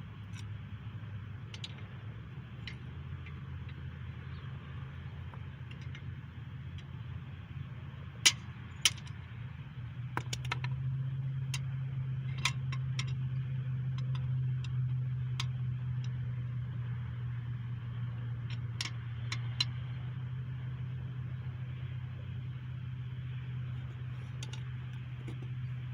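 Scattered metal clinks and knocks of hand tools and engine parts, with two sharp knocks about eight seconds in, over a steady low hum.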